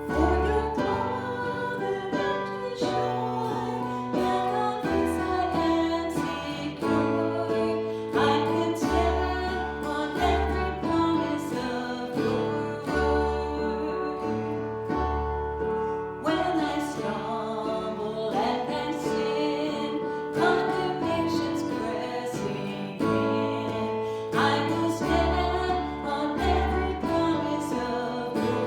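Music led by acoustic guitar, with steady bass notes changing every second or two.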